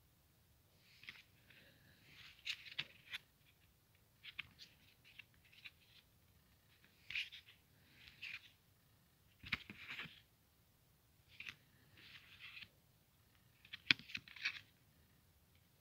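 Handling noise: short bursts of rustling and scraping with a few sharp clicks, coming every second or so, as small items are picked up and moved about.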